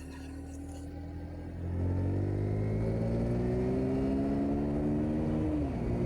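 Motorcycle engine accelerating under way, its pitch climbing steadily for several seconds, then dropping suddenly near the end.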